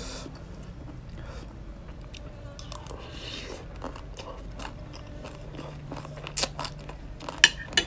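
Close-up mouth sounds of chewing a spoonful of papaya salad with raw crab: wet chewing with scattered crunches, and a few sharper, louder crunches and smacks near the end.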